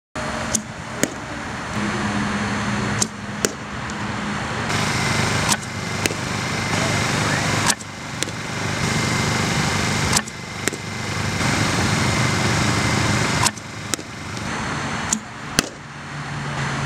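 Softball bat hitting balls in batting practice: a sharp crack every two to three seconds, most followed about half a second later by a second sharp knock, over steady outdoor background noise.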